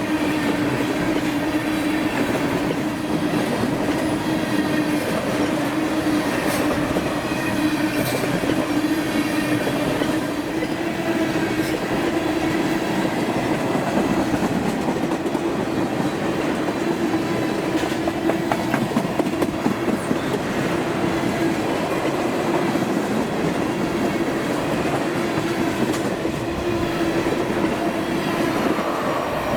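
Freight train rolling past on the rails: a steady rumble of railcars with a constant hum and occasional sharp wheel clicks.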